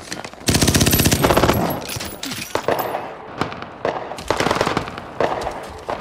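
Automatic gunfire: one long rapid burst starting about half a second in, followed by several single shots spaced about a second apart.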